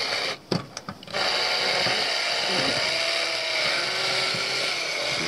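Cordless drill-driver running steadily, driving a self-tapping screw through a metal window drip sill into the PVC window frame, starting about a second in after two short clicks.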